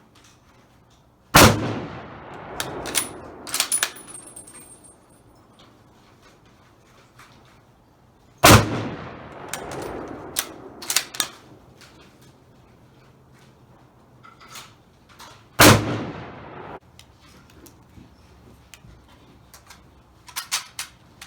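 Three rifle shots, about seven seconds apart, each trailing off in an echo. A few sharp metallic clinks follow a second or two after each of the first two shots.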